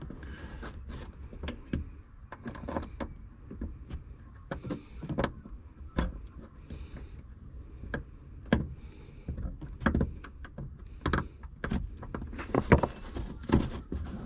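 Irregular clicks, taps and knocks of a hand tool working on the small screws of a plastic boot trim cover.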